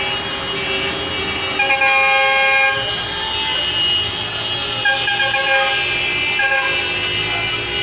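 Many taxi and city-bus horns honking together, overlapping held blasts of several different pitches over the steady noise of slow-moving traffic.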